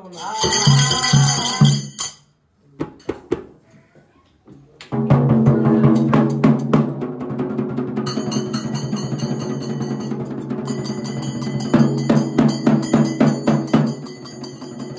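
Percussion music: drums with ringing metal percussion over a sustained low tone. A loud burst of about two seconds, a break with scattered taps, then steady playing from about five seconds in.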